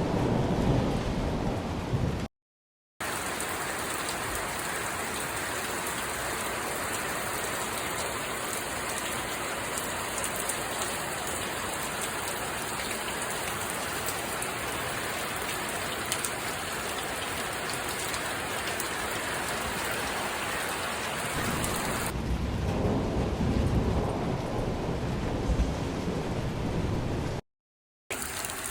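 Steady heavy rain falling, an even hiss of noise, in several storm clips joined by brief silent cuts. The clips at the start and near the end carry a deeper, heavier rushing noise.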